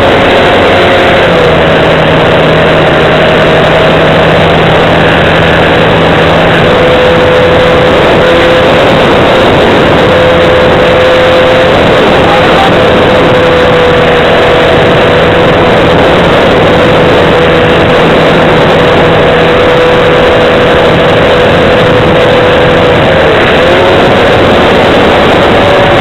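Model airplane motor and propeller running steadily, loud and close, with a dense rush of air noise over it. The motor's pitch shifts a little and dips briefly near the end, as with a throttle change.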